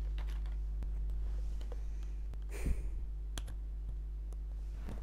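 Small clicks and taps of parts of a metal model airliner being handled and pressed into place, with a brief rustle about two and a half seconds in, over a low steady hum.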